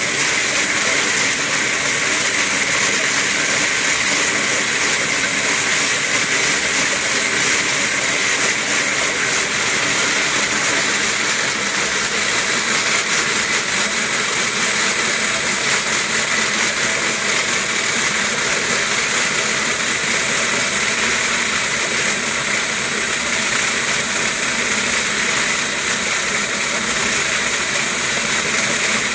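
Wooden slat mill running under a trotting dog: its slats and rollers make a steady, unbroken rolling noise.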